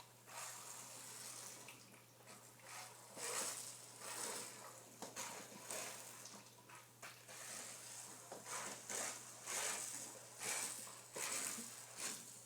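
A person gulping down a drink in repeated swallows, about one a second, faint and wet.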